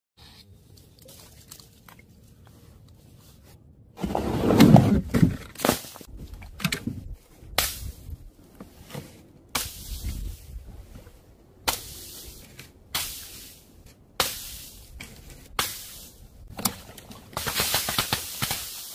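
After a quiet start, more than a dozen sharp impacts and splats follow one another from about four seconds in, as paint- and liquid-filled objects are dropped and burst on a tiled floor; the run ends in a longer spattering noise near the end.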